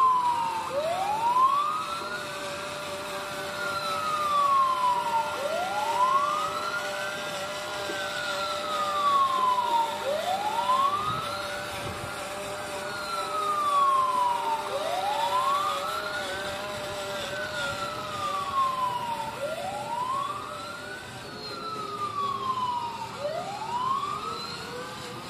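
The RC fire truck's built-in electronic siren wailing slowly from its small speaker. The tone rises and falls over and over, each cycle taking about five seconds.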